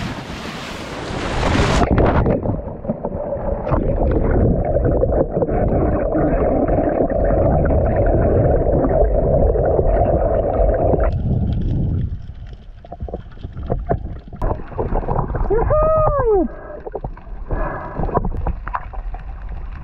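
Loud splash of a diver belly-flopping into the sea. This is followed by the muffled rush of water and bubbles heard underwater, which fades about halfway through and leaves scattered knocks. Near the end comes one short pitched call that rises and falls.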